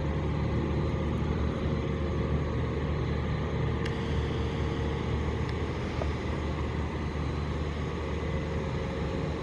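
Heavy machinery's engine running steadily, an even low rumble that holds without change.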